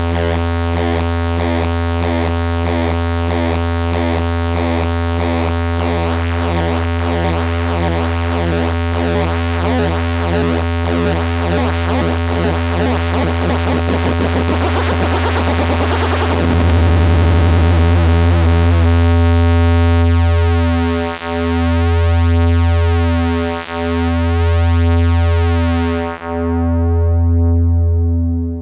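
Behringer Odyssey analog synthesizer holding one low droning note, its oscillators beating against each other. In the last third the sound pulses in slow swells about every two and a half seconds, and near the end the filter closes, cutting off the high end.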